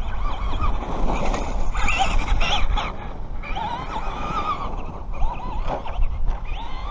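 Radio-controlled monster truck's motor whining, its pitch rising and falling as the throttle is worked, over a steady low rumble.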